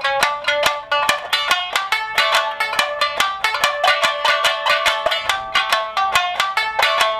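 Amami shamisen, the three-stringed Amami island lute, played solo in a quick, steady run of plucked notes, several a second, bright and twangy, with no singing.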